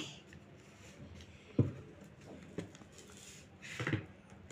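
A small cardboard board book being opened and its thick pages turned by hand: a sharp tap about one and a half seconds in, a lighter tick a second later, and a brief louder sound near the end, over quiet room tone.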